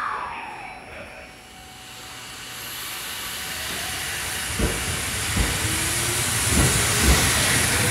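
Sanyo Electric Railway commuter train pulling out of a station: a hiss swells and grows louder from about two seconds in, then from about halfway the wheels thump over rail joints, the thumps coming closer together as it picks up speed.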